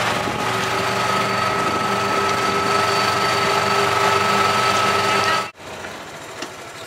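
Gas-powered golf cart's small engine running steadily under way, with a steady whine over its hum. It cuts off suddenly about five and a half seconds in, leaving a quieter hum.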